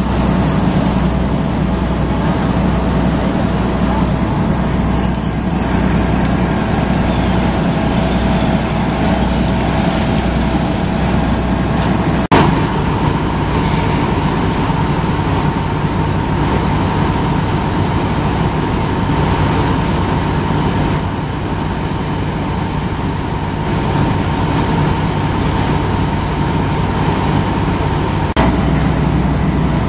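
Fire apparatus engines running steadily at the scene, a loud continuous rumble with a faint steady whine above it, broken by two abrupt jumps where the footage is cut.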